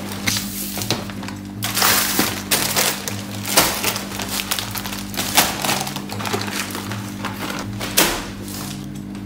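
A background song plays under loud rustling and clattering of belongings being handled during unpacking, with a few sharp knocks.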